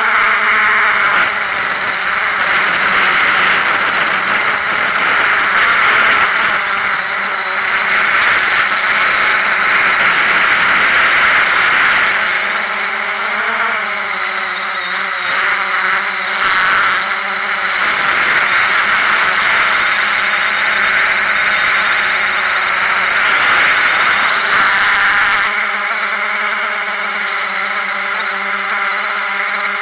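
Small drone's propellers and motors whirring steadily and loudly, heard from the drone's own camera. The pitch wavers as it manoeuvres about halfway through, and the low rumble drops away near the end.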